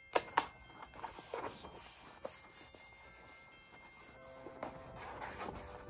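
Hands handling a cardstock paper box: two sharp taps near the start, then light rubbing and rustling of paper as a picture panel is pressed and smoothed onto it.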